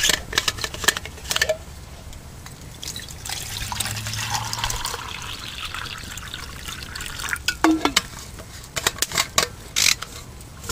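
Water poured from a bottle into a metal canteen cup, filling it for tea. The steady splashing pour starts about three seconds in and lasts about four seconds. Sharp clicks and knocks from handling the cup and bottle come before and after it.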